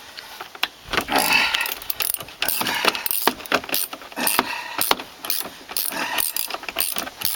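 Hand tools working on car body parts during disassembly: a busy run of irregular clicks and short scraping noises.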